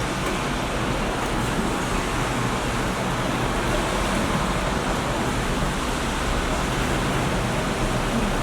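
Steady rushing hiss of background room noise with a low hum beneath it, like an air conditioner running; no distinct chewing or other events stand out.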